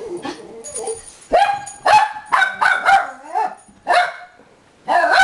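A small dog barking: a quick, uneven run of about seven short, high-pitched barks starting about a second in, with a brief pause before the last.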